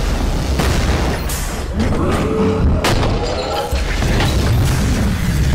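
Animated battle sound effects: booming explosions and sharp blasts from arm cannons, with music underneath and a rise-and-fall sweeping tone near the middle.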